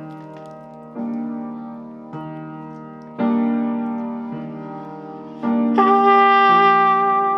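Improvised keyboard music: piano-like chords struck about once a second, each fading away. Near the end a louder, brighter brass-like chord comes in and is held.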